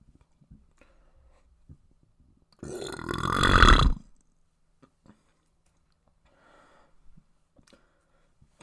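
A person lets out one long, loud belch about two and a half seconds in, lasting roughly a second and a half and growing louder toward its end.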